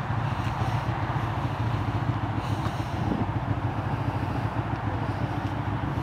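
Yamaha Wolverine RMAX2 1000 side-by-side's parallel-twin engine idling steadily.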